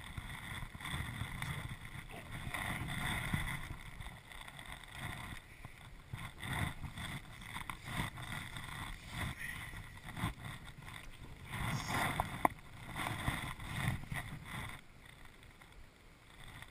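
Water splashing and sloshing as a hooked chub is played and drawn in to the bank, mixed with handling noise from the rod, reel and landing net, in uneven swells with a few sharp clicks.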